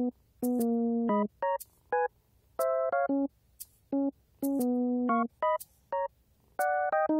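Background music: a bouncy keyboard tune of short, clipped chords and notes in stop-start phrases, with light high ticks keeping time.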